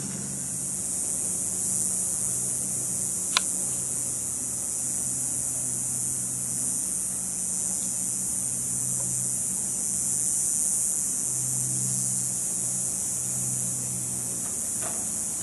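Diesel engines of a Komatsu PC300 excavator and a concrete crusher running together: a steady low drone that swells and eases, under a constant high hiss. A single sharp knock comes about three seconds in.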